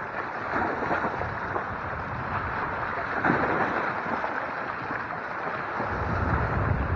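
Choppy sea washing and splashing against shoreline rocks, mixed with wind blowing on the microphone; a low wind rumble builds near the end.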